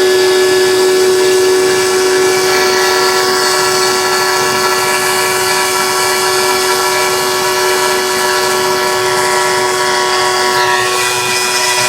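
CNC machine running with a steady, loud whine made of several fixed pitches, as from the spindle and drive motors during machining. Some of the higher tones shift slightly near the end.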